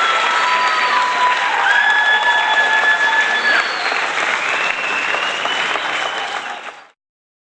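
Large crowd cheering and applauding, with several long, held cries standing out above the clapping. It fades out near the end, leaving a short silence.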